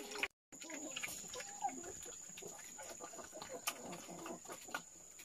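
A puppy eating wet rice from a bowl: quiet, irregular lapping, chewing and smacking, with small clicks against the bowl.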